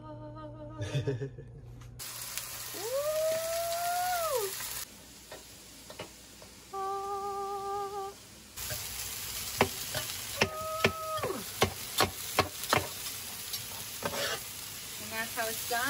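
Food sizzling on an electric flat-top griddle, with a run of sharp knife taps against the griddle surface as cooked chicken is chopped. A few short pitched sounds rise and fall in between, one held briefly like a hum.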